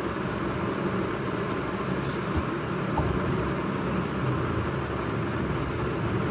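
Steady rushing background noise with a low hum, and a couple of faint clicks around the middle.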